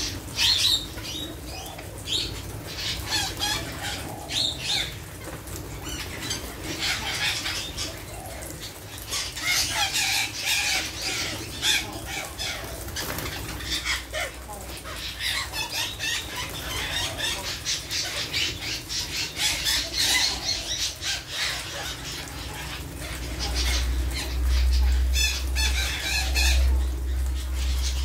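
A large flock of parakeets chattering and screeching continuously, with bursts of wing flapping as birds take off and land. A low rumble joins in during the last few seconds.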